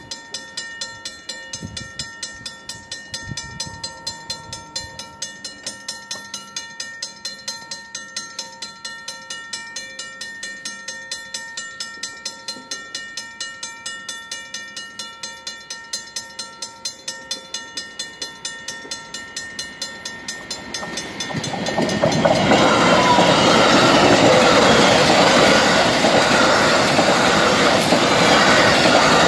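Safetran mechanical crossing bell ringing steadily at about three strokes a second. After about twenty-two seconds an electric commuter train passes over the crossing, much louder, covering the bell.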